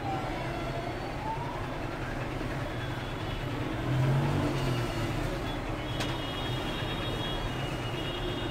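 Steady background rumble with a siren-like wail that dips and then rises in the first second, and a single sharp click about six seconds in.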